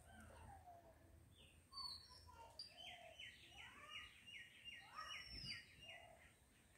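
Faint birdsong from several birds: scattered whistled calls, with a quick run of repeated high chirps, about six a second, lasting around two seconds near the middle.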